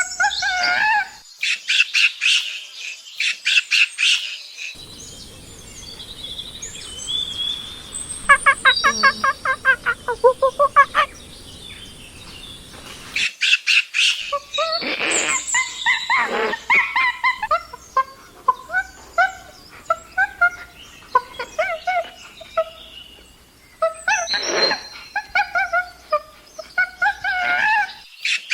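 Chimpanzee calls from several recordings joined together, with the background changing abruptly between them. A fast run of hoots climbs in pitch about a third of the way through, and high shrill calls and screams follow after the middle.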